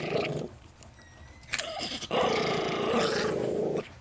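A small chihuahua–miniature pinscher mix dog growling while guarding its peanuts: a short growl at the start, another about one and a half seconds in, then a long, steady growl from about two seconds in that stops just before the end.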